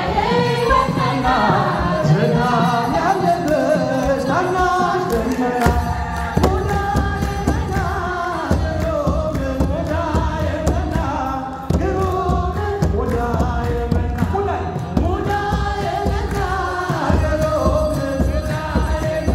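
A group of voices singing a church hymn together, with a low, steady beat joining in about six seconds in.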